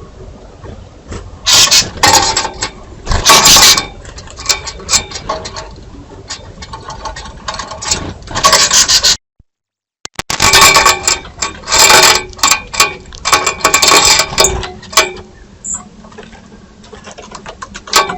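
Birds scrabbling, pecking and jostling on a bird feeder right by the trail camera's microphone: bursts of scraping, tapping and rustling, with a short cut to silence about nine seconds in.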